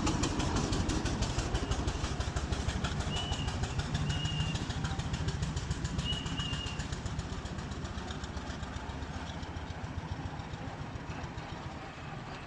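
Fowler T3 steam roller's exhaust chuffing in a quick, even beat as it works up a hill. It grows gradually fainter as it draws away.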